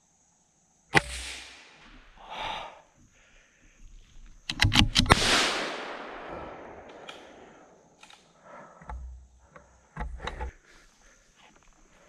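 Gunshots in woodland: a sharp shot about a second in, then a louder report around five seconds that rolls away through the trees for two to three seconds, with fainter cracks near the end.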